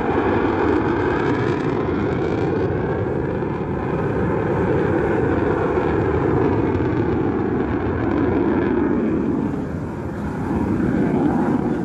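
Jet engine of a Thunderbirds F-16 fighter passing overhead: a loud, steady jet noise with a sweeping, phasing quality as the aircraft moves across the sky. It dips briefly near the end, then swells again.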